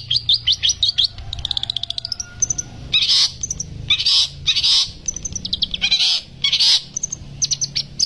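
Long-tailed shrike (cendet) singing a fast rolling song. Rapid runs of sharp high notes are broken by several short, harsh rasping bursts in the middle, and the quick runs pick up again near the end.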